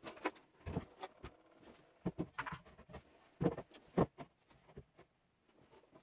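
Irregular knocks, taps and light scrapes of wood being handled, about a dozen at uneven spacing, the loudest two a little after the middle.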